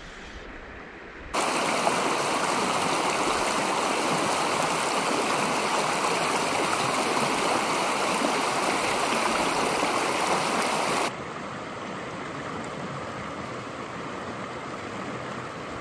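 River water rushing over rocks through a small cascade, a steady, even wash that starts suddenly about a second in. About eleven seconds in it drops to a quieter babble of a shallow riffle over boulders.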